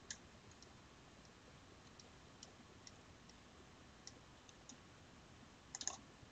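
Faint, scattered clicks of a computer mouse, with a quick run of several clicks near the end.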